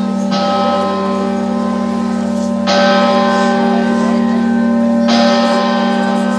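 A large church bell tolling slowly: three strokes about two and a half seconds apart, each ringing on into the next over a steady low hum.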